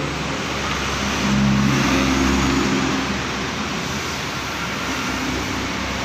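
Engine noise of a nearby motor vehicle over a steady background hiss, swelling for a second or two about one and a half seconds in, then easing back.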